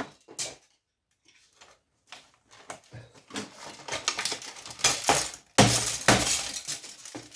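Brittle casing from old scrap electrical equipment cracking and snapping as it is broken apart, with pieces clattering. After a single click and a short pause, the cracks come in a quick run, the loudest a little past halfway.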